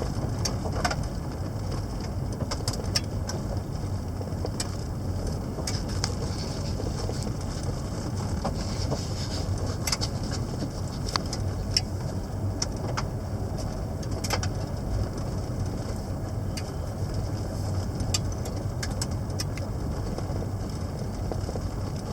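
Car driving along a road, heard from inside the cabin: a steady low rumble of road and engine noise, with scattered small ticks and rattles.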